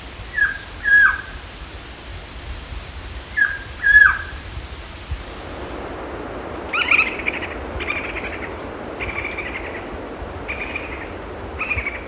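Quetzal calls: two pairs of clear whistles, each note sliding down in pitch with the second of each pair the louder. These are followed by a run of about five harsher, chattering calls spaced roughly a second apart.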